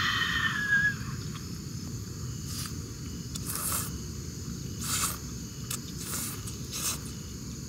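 A person slurping knife-cut clam noodles from a bowl in about five short slurps spread over several seconds, over a low steady background rumble.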